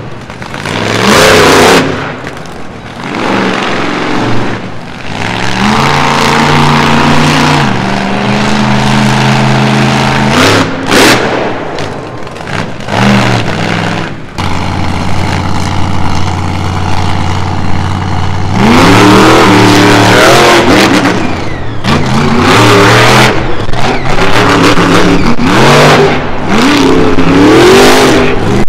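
Monster truck engine revving hard again and again, rising and falling in pitch. It settles to a steady drone for a few seconds past the middle, then revs repeatedly once more. There is a short burst of noise about eleven seconds in.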